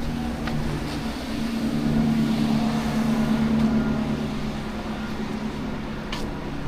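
A motor vehicle's engine running with a steady low hum in two tones, getting louder about two seconds in and easing off again, as if passing close by, over street noise.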